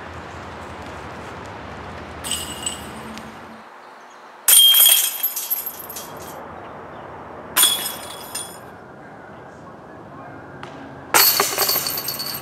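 Metal chains of a disc golf basket clashing and jingling as flying discs hit them, four separate times. Each hit is sudden and rings briefly; the second, about four and a half seconds in, is the loudest.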